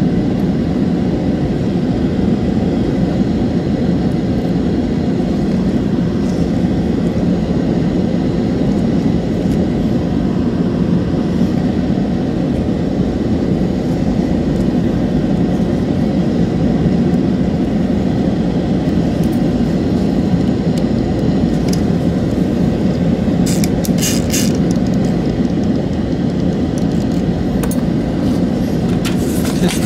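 Steady low droning noise, like a running fan or motor, with a few light clicks of small plastic parts and tools being handled about two-thirds of the way in and again near the end.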